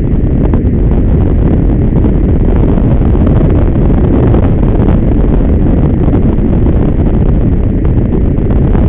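Loud, steady wind buffeting the microphone at downhill speed, mixed with the low rumble of longboard wheels rolling on asphalt.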